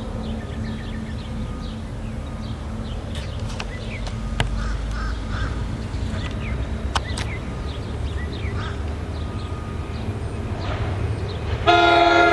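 Birds calling over a low outdoor rumble. Then, near the end, an NJ Transit diesel locomotive's air horn starts blowing loudly, a chord of several steady notes.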